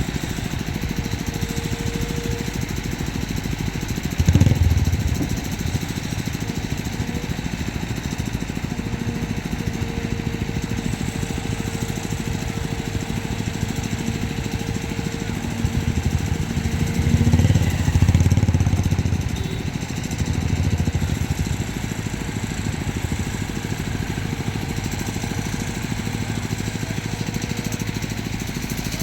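Heavy-machine diesel engine running steadily with a fast pulsing beat, swelling louder briefly about four seconds in and again for a few seconds past the middle.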